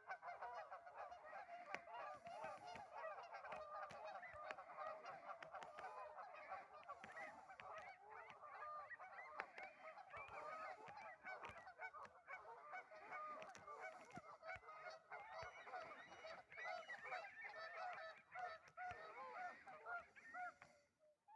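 A flock of ducks and swans calling, faint: a dense, continuous chorus of many overlapping short calls.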